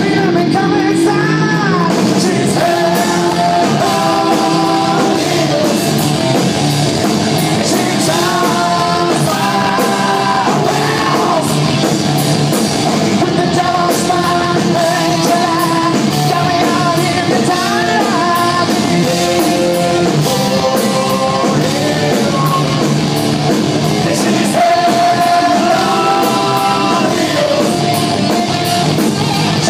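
Rock band playing live, a singer's melody over guitars and drums at a steady loud level.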